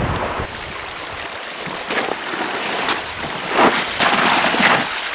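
Spring water trickling and splashing into a plastic water canister as it is filled, louder in the last second and a half, with a couple of sharp plastic clicks before that.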